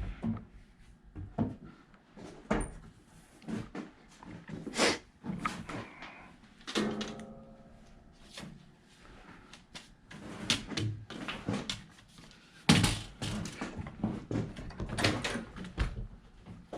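Irregular knocks and clunks of things being handled and set down, the loudest about thirteen seconds in, with a short rasp about seven seconds in.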